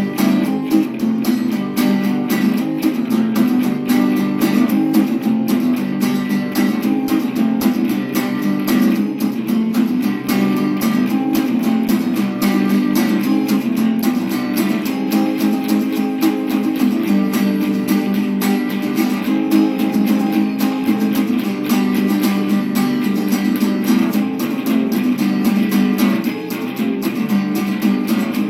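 A band playing a song with strummed guitar at a steady rhythm, in a rough demo take.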